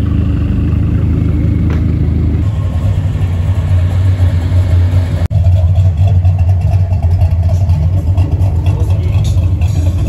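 Sports car engines running at low speed as cars creep past close by, a steady low engine note; the sound cuts out for an instant about five seconds in.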